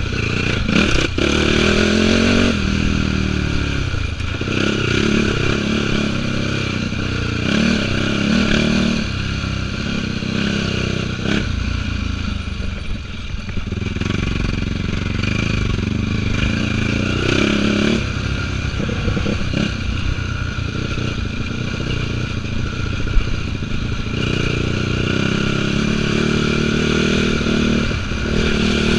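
2004 Yamaha YFZ450's single-cylinder four-stroke engine under race throttle, revving up and falling off again and again as the quad is ridden over a rough dirt trail. A single sharp knock comes about 23 seconds in.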